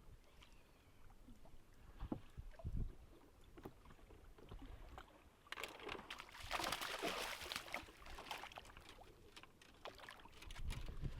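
Faint sounds aboard a fishing boat drifting on the lake: a few soft knocks, then a few seconds of splashy, crackling water noise about halfway through.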